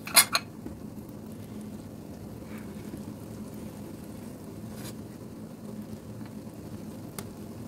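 Strawberry jam boiling in an enamel pot, a steady bubbling hiss, while a metal ladle skims the foam. Two sharp knocks just after the start are the loudest sounds.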